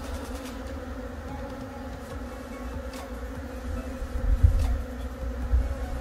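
Honeybees buzzing around an opened hive, a steady hum of many bees. A couple of low thumps come about four and a half and five and a half seconds in.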